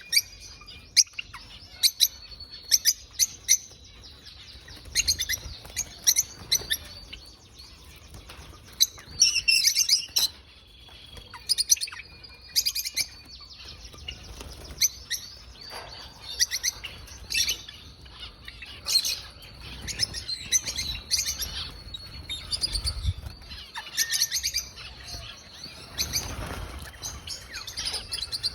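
Small birds chirping and tweeting, many short high calls and brief trills overlapping throughout.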